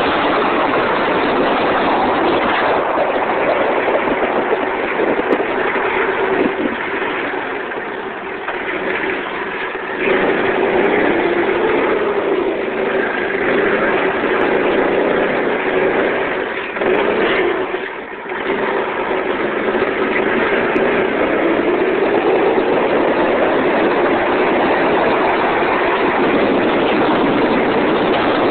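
Go-kart's Predator engine running at speed, with wind rushing over the microphone. The engine sound dips briefly twice and picks back up.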